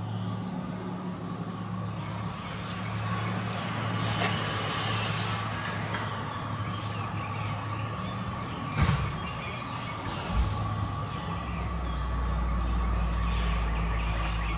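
Steady low mechanical hum, like a motor or engine running, with a thin steady whine above it. A deeper rumble comes in about three-quarters of the way through. A few faint clicks and taps sound over it.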